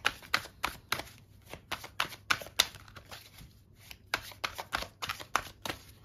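A tarot deck being shuffled by hand, the cards snapping against each other in a quick series of sharp clicks, about three a second, with a short pause about three seconds in.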